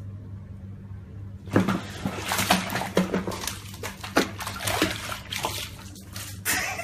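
A cat falling into a foamy bath and thrashing in the water: a sudden splash about a second and a half in, then repeated splashing and sloshing for about five seconds.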